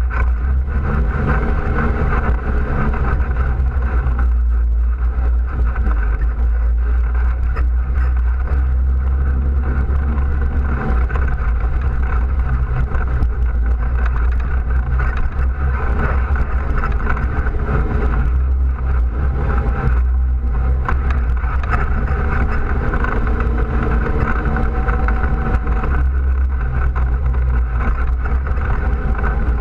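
All-terrain vehicle's engine running steadily while riding along a dirt trail, with a heavy low rumble. The engine note eases off briefly a few times as the throttle is let off.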